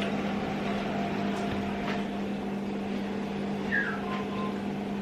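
A steady low machine hum with a faint hiss and a few soft clicks over it.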